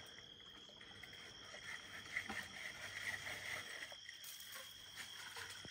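Faint outdoor background with a steady high-pitched tone and a few soft clicks.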